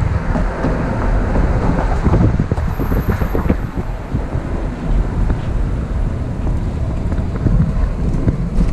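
Wind buffeting the microphone: an uneven low rumble with gusts.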